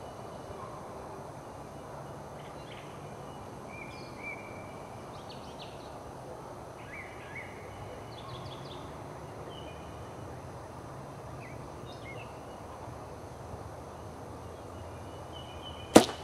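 Faint bird chirps over steady outdoor background noise, then near the end one sharp, loud crack of a hunting bow being shot.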